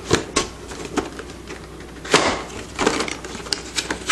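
A cardboard collectible-figure box being handled and opened by hand: a string of taps, scrapes and short rustles, the loudest a longer scrape about two seconds in.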